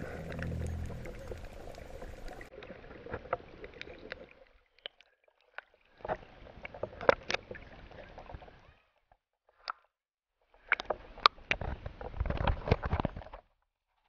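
Water sloshing and gurgling around a camera half under the surface, with many sharp clicks and splashes. It comes in three stretches, each cutting off into silence.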